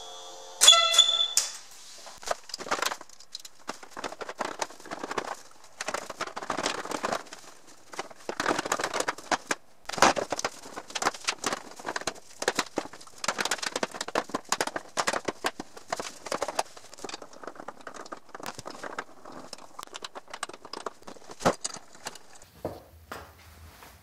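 Plastic body covers of a Yamaha Zuma 125 scooter being worked back into place by hand: irregular clicks, rattles and scrapes of plastic panels, with one sharp ringing click about a second in.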